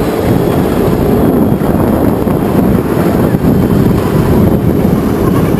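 Ride-on miniature tram running along its track, heard as a steady, dense low rumble with wind buffeting the microphone.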